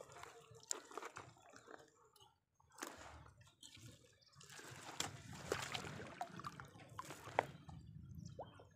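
Faint dripping water and the rustle of a wet nylon gill net being handled in the boat, with scattered small clicks and ticks as a caught fish is worked out of the mesh.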